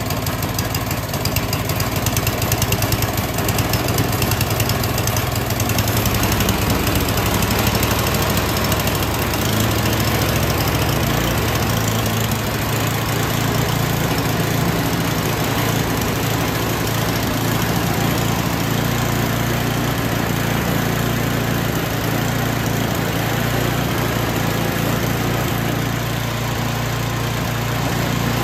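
White Outdoor 30-inch two-stage snowblower's single-cylinder gas engine running steadily.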